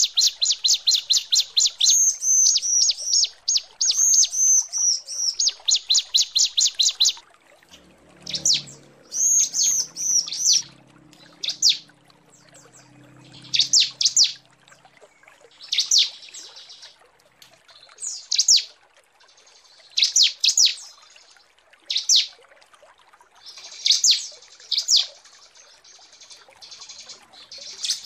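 Female bar-winged prinia (ciblek) calls used to lure males: a fast run of high chip notes, about six a second, for the first seven seconds, then short groups of two or three high down-slurred notes about every two seconds.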